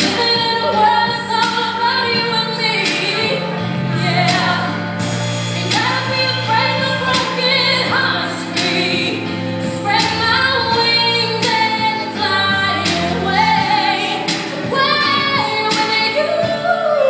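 A song playing, with a woman singing a slow melody over sustained low notes.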